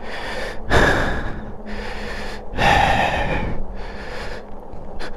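Heavy breathing of a person pedalling a bicycle hard, close to the microphone. There are two loud breaths, one about a second in and one near the middle, over a steady background hiss.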